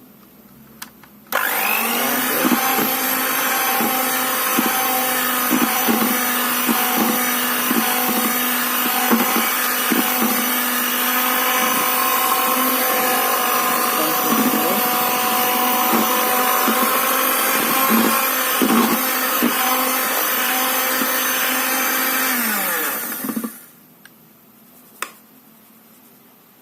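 Electric mixer beating cake batter of eggs, sugar and flour. It runs at a steady speed for about twenty seconds with scattered clicks, then winds down in pitch and stops when switched off.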